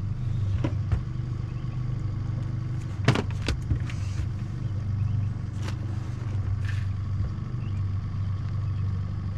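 Boat outboard motor running steadily at trolling speed, a low even drone, with a few sharp knocks and clatters from handling a landed fish on the deck, the loudest about three seconds in.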